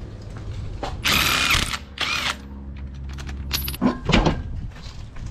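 Two short bursts of tool whirring and ratcheting on the front wheel's lug nuts, followed by a steady low hum and a few clicks and knocks as the wheel is handled.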